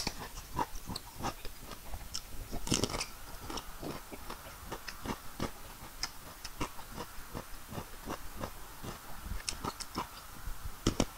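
Close-up chewing of raw cucumber: crisp crunches and wet mouth sounds at about two crunches a second, with louder crunching about three seconds in and again near the end.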